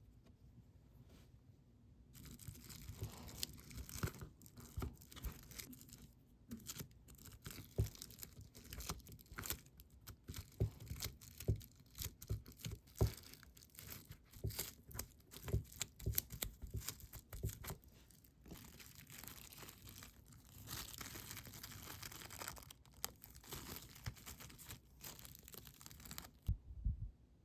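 Close-up crafting handling sounds: crinkly rustling and tearing with many small sharp taps and clicks. They start about two seconds in and stop abruptly near the end.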